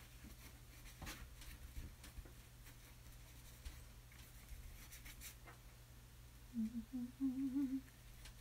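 A woman humming a few wavering notes under her breath for about a second and a half near the end, over faint scratchy strokes of a paintbrush on canvas.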